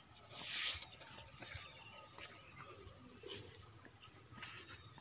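Cast net being hauled in through shallow pond water by its rope: a brief watery swish about half a second in, then faint ticks and rustles, with another short swish near the end.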